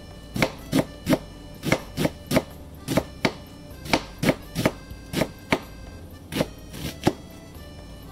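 Chef's knife slicing an onion thinly on a wooden cutting board: quick knocks of the blade on the board, about three a second, stopping about a second before the end.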